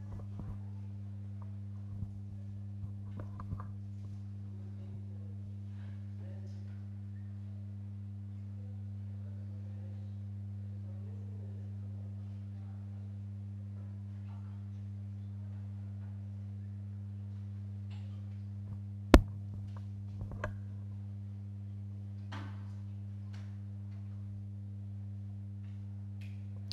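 Quiet room tone: a steady low electrical hum, with a few faint knocks and one sharp click about nineteen seconds in.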